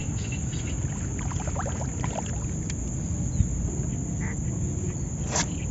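Steady low noise of wind and lake water around a small boat, with a few faint chirps and a single sharp click about three and a half seconds in.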